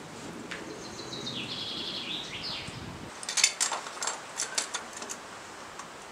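A bird sings a short warbling phrase, then comes a quick run of sharp metallic clinks over about a second and a half, from the climber's rack of gear knocking as he moves up the chimney.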